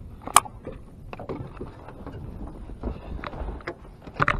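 Handling noise aboard a small fishing boat: a low rumble with scattered light knocks, and one sharp click about half a second in.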